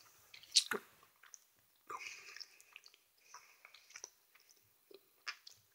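A person chewing a sweet with wet mouth sounds and scattered small clicks, the loudest click about half a second in.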